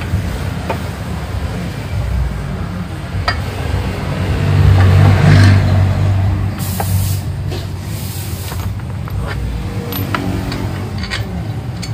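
Low engine rumble of a motor vehicle, swelling a few seconds in, with scattered metal clicks and clinks of hand tools on a scooter's rear wheel assembly. A hiss lasts about two seconds just past the middle.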